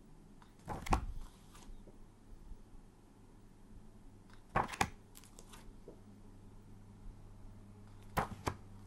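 Paper flash cards rustling and snapping as they are swapped by hand, three times about four seconds apart.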